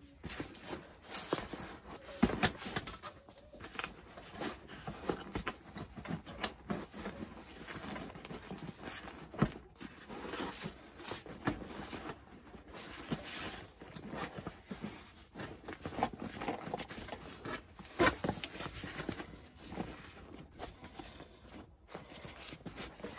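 Handling noise from a mower seat and its cover being worked by hand: the cover rustling as it is pulled and smoothed, and the seat shifting and knocking against the bench, in irregular knocks and scrapes. The sharpest knocks come about two seconds in and again near ten and eighteen seconds.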